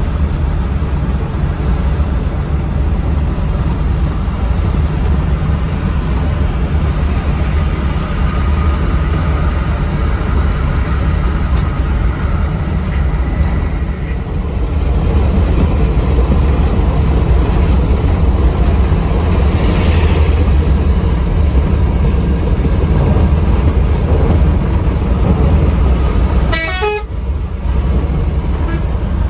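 Steady engine and road drone inside the cab of a Mercedes-Benz OH 1626 NG coach running at highway speed, with a short horn blast near the end.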